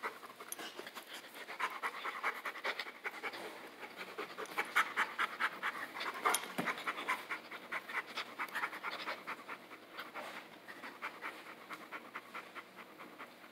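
Boxer dog panting rapidly with its mouth open after rough play, a quick run of short breaths that grows quieter near the end.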